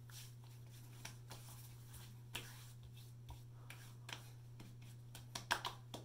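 Faint pats and rubs of hands applying aftershave to a freshly shaved face, with a few sharper pats near the end, over a steady low hum.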